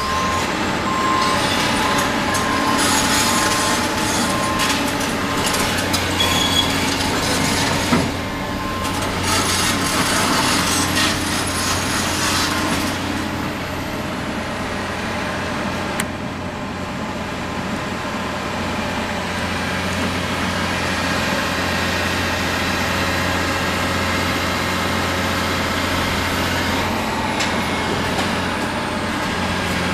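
A large hydraulic excavator's diesel engine running under load while its bucket rips through the building's metal cladding and steel framing. For the first dozen seconds there is dense crunching and clattering of torn metal and debris, with a sharp knock about eight seconds in and an intermittent beeping. After that the engine runs on more steadily, with less crashing.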